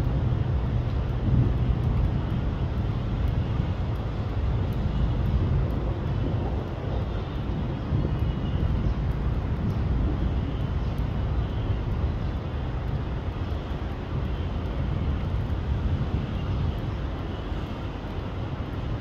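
Steady low rumble of a diesel railcar's engine running in the distance, with no horn or wheel clatter standing out.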